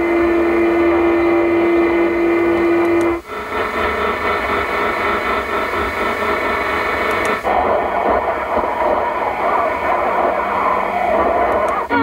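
Medium-wave AM reception through the stock Audi MMI Basic car radio as it is stepped up the band: a steady heterodyne whistle over static that stops about three seconds in, then static and interference. Each tuning step to a new frequency briefly mutes the sound, about three and seven seconds in.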